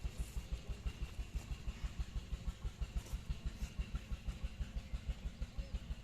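An engine running steadily at a low, even chug of about six beats a second.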